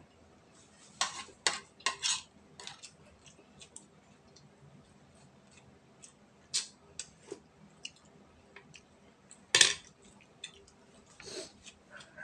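Spoons and forks clinking and scraping against plates as two people eat: scattered irregular clinks, a quick cluster about a second in and one loud sharp clink about ten seconds in.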